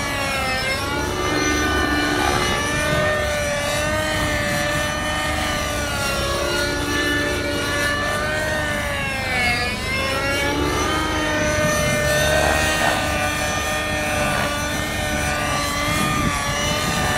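Radio-controlled model helicopter flying 3D aerobatics: the whine of its motor and rotor rises and falls in pitch as it manoeuvres. About nine seconds in, the pitch swoops sharply down and back up.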